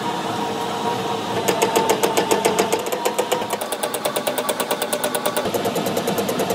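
Metal lathe running with a steel wrench workpiece spinning in the chuck while its outer surface is turned. There is a steady machine hum, and from about a second and a half in a fast, even clatter of about eight beats a second.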